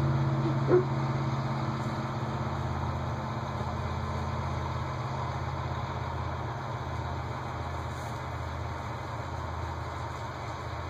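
A steady, low engine hum that slowly fades, with a brief high-pitched sound about a second in.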